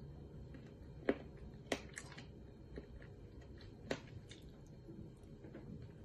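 Close-up chewing and lip smacking while eating fried chicken off the bone, with a few sharp mouth clicks, the loudest about a second in and near the middle.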